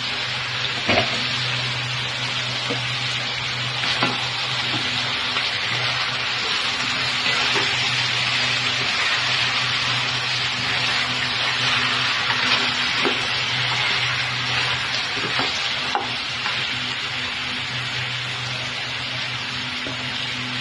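Chicken pieces with carrots and potatoes sizzling in an uncovered pot: a steady hiss, with a few sharp clacks of a utensil against the pot as the food is stirred. A steady low hum runs underneath.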